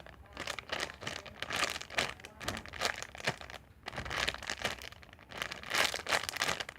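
Crinkling and rustling in irregular bursts as a donut squishy toy is handled.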